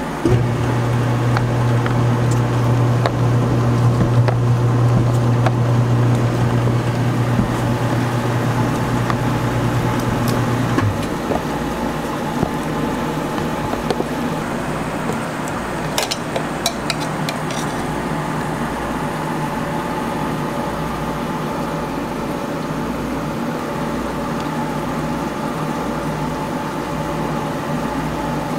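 Gelato batch freezer running with a loud, steady low hum while gelato is dispensed, cutting off about eleven seconds in. A quieter steady machine hum carries on, with a few light clicks past the middle.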